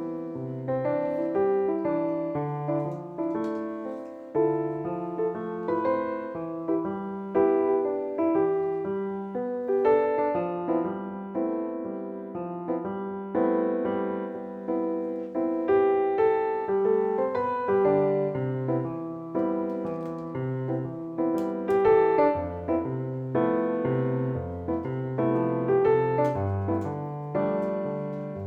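Background piano music, a gentle tune of struck notes that ring and fade.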